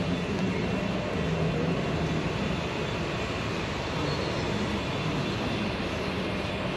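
Steady rumbling hum of O scale model trains running on the club layout's track loops, with a low wavering drone underneath.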